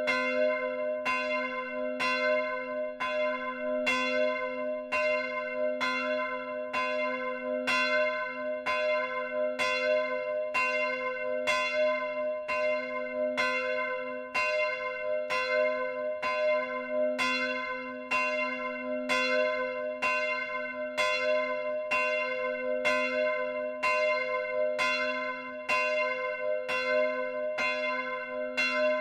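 Bronze church bell swinging in its timber frame, heard up close in the bell tower. Its clapper strikes evenly about one and a half times a second, each stroke ringing on into the next over a steady low hum.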